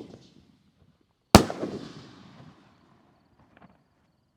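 A 4-inch canister firework shell goes off with one sharp, loud bang about a second in, its echoing rumble dying away over about a second.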